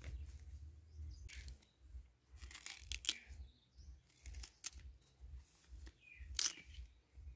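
A series of short, sharp rustling noises from something being handled, spaced irregularly a second or two apart, over a low, uneven rumble.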